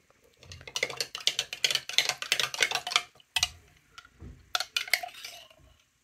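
Metal spoon stirring in a glass mason jar of liquid dye with fabric soaking in it, clinking quickly and repeatedly against the glass, then a few separate clinks in the second half.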